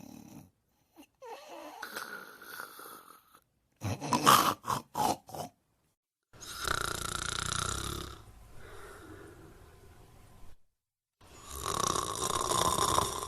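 Snoring, in several short pieces joined one after another and cut apart by brief dead silences: a run of quick sharp sounds near the middle, then two long, loud snores near the end.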